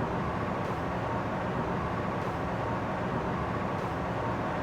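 Steady kitchen background noise: an even, machine-like hum with no break or change.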